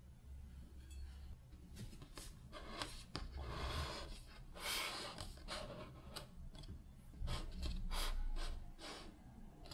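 A ceramic plate being turned by hand on a table: short rubbing scrapes with scattered light clicks and knocks.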